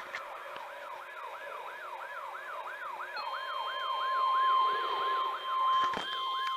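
Electronic siren-style alert sweeping up and down about three times a second, joined about three seconds in by a steady high-pitched alert tone. This is typical of a weather alert radio sounding its alarm for an incoming warning.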